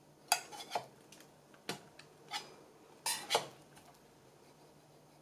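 A thin metal spatula scraping and clicking against a 3D printer's bed skin and the edge of a printed ABS part as it is worked under the part to pry it off. About six short scrapes and clicks, most in pairs.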